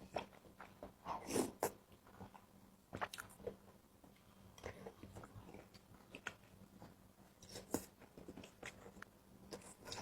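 Close-miked chewing and biting of a spicy seblak with tongue: irregular wet mouth clicks and smacks, a few of them louder bites.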